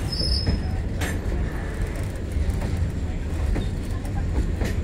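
Loaded freight train of open box wagons rolling past close by: a steady low rumble of steel wheels on rail, with occasional sharp clicks.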